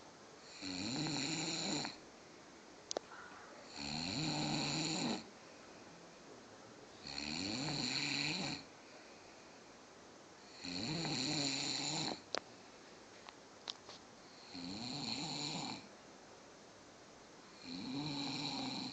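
A sleeping man snoring: six snores with a wavering pitch, each about a second and a half long and coming roughly every three and a half seconds, with a few faint clicks in the quiet between them.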